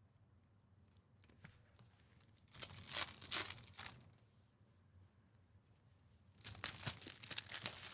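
Foil wrapper of a Topps Chrome baseball card pack being torn open and crinkled, in two bouts: one about two and a half seconds in lasting over a second, and another starting about a second before the end.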